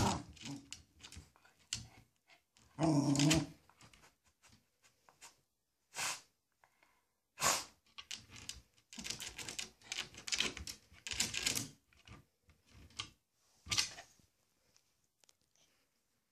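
Yorkshire terrier scrabbling its claws against the front of a terrarium, a rapid clicking and scraping in several runs through the middle and later part. It barks near the start and again about three seconds in.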